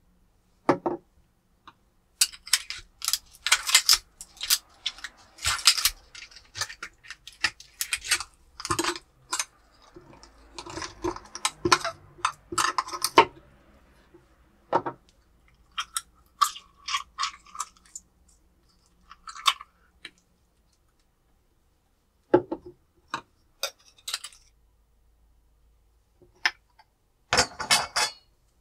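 Turban shells (sazae) clinking, clattering and scraping against each other and a hard surface as they are handled. The clatter comes in irregular clusters with short pauses, with a longer scraping stretch about a third of the way in.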